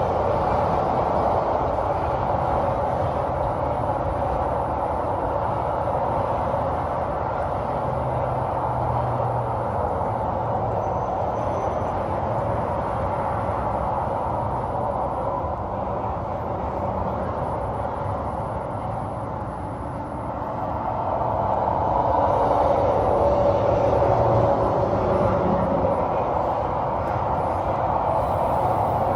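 Nitrogen hissing steadily through the regulator, gauge manifold and hoses into a mini-split's refrigerant lines as they are pressurized for a leak test. The flow eases about two-thirds of the way through, then picks up again.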